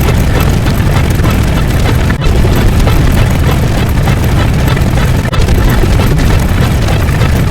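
A loud, continuous rumbling noise effect, heaviest in the low end, broken by two brief dips about two and five seconds in.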